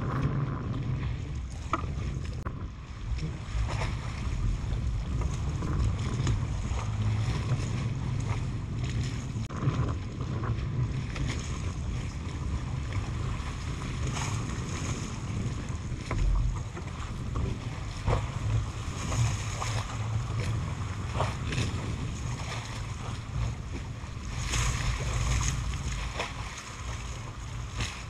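Outdoor water-side ambience: wind rumbling on the microphone and water lapping, with scattered small clicks and knocks.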